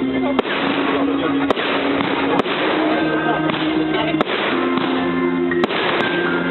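Music with held notes playing over a dense, continuous crackle of fireworks, without any single standout bang.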